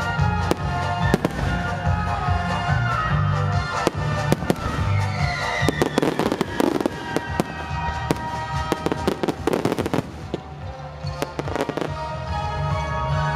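Aerial firework shells bursting in quick succession, sharp bangs and crackle, thickest in the middle of the stretch with a brief lull near the end. Music with a heavy bass line plays under the bangs.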